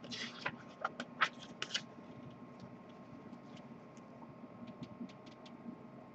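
Pages of a paper booklet being turned and handled: a brief rustle with several crisp paper crackles in the first two seconds, then a few faint light ticks.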